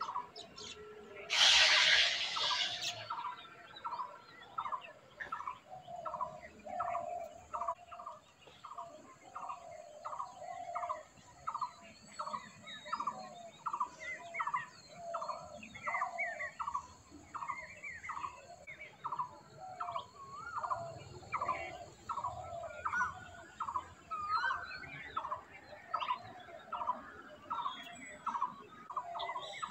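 Birds calling: a long series of short notes repeated evenly, about one and a half a second, with scattered chirps, over a faint sizzle of fish frying in oil. A brief louder burst of noise comes about a second and a half in.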